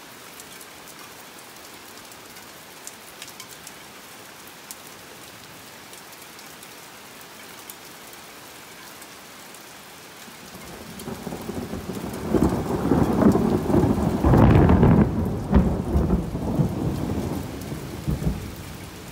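Heavy rain falling steadily, then about eleven seconds in a long roll of thunder builds, peaks loudly and rumbles away over several seconds.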